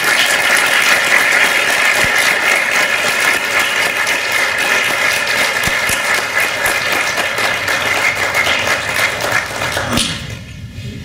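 Audience applause: many people clapping steadily, then dying away near the end.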